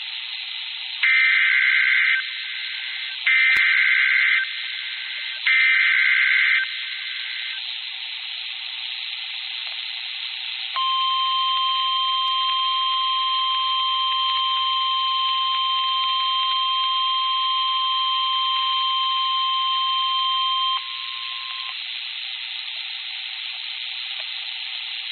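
Emergency Alert System header: three short bursts of data-modem screech, each about a second long. After a few seconds of radio hiss comes a steady single-pitch alert tone that lasts about ten seconds. Together they signal an incoming severe thunderstorm warning.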